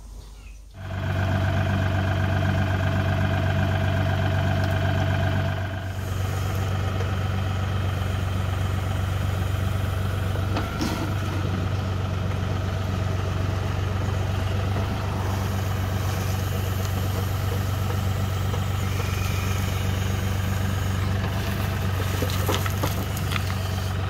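LS MT235HE compact tractor's diesel engine running steadily while the backhoe digs, its note changing about six seconds in. A few short knocks and scrapes from the bucket working the gravel come through around the middle and near the end.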